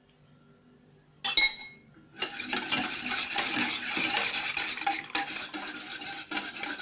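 A spoon clinks once against the pot with a brief ring, then stirs steadily, scraping around the pot as the lemon, water and gelatin mixture is mixed with yellow colouring.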